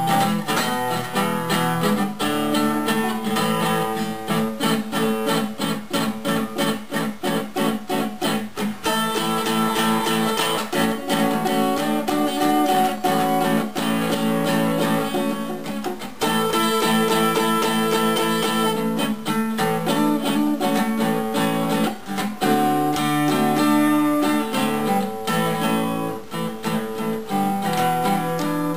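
Gibson L-48 archtop acoustic guitar played solo, freshly repaired, in loose noodling: strummed chords with a quick run of picked single notes a few seconds in.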